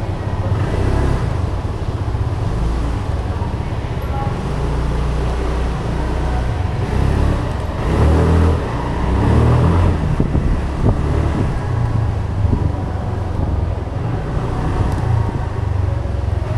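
Cars running and moving through an underground concrete parking garage: a steady low engine rumble that swells louder about halfway through, as a vehicle passes close.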